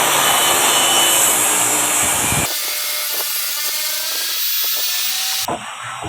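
Circular saw blade on a home-made table saw running and cutting wood, loud and harsh. About two and a half seconds in the lower part of the sound drops away, and near the end it falls off suddenly.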